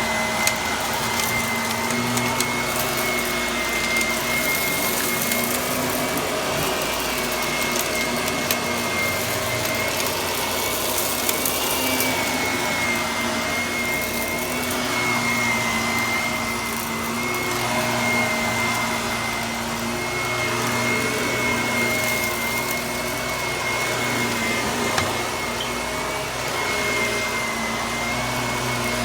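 Vacuum cleaner running steadily with a high motor whine, while a stream of small crackles and ticks comes from crunchy debris being sucked up.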